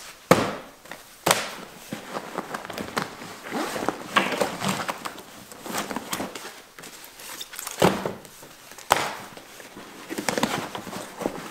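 Paperback map books and magazines being pulled out of a fabric gear bag and set on a board tabletop: paper and bag fabric rustling and sliding, with four sharp knocks as books land on the table.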